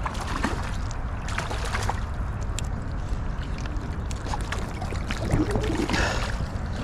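Steady water and wind noise, with scattered small clicks and splashes.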